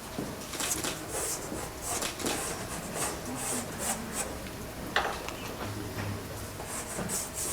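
Dry pastel sticks scraping across paper primed with a fine-grit pastel ground, in repeated short strokes, with a sharp click about five seconds in.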